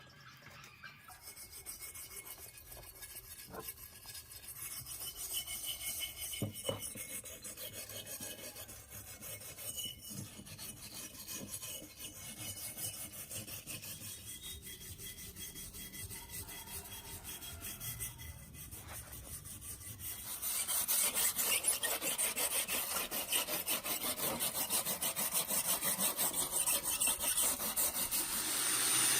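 Rapid rasping strokes of a file or abrasive rubbed by hand against a rusty metal fan part, stripping rust. It grows clearly louder about two-thirds of the way through, with a few sharp clicks early on.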